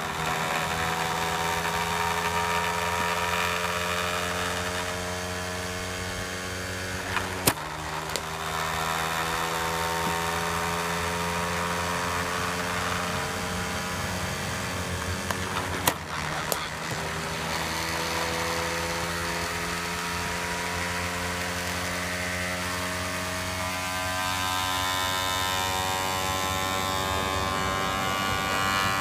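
Electric cricket bowling machine running with a steady motor whine that slowly rises in pitch. Twice the whine dips as a ball is fired with a sharp knock, and about half a second later a second knock follows as the ball is struck at the far end.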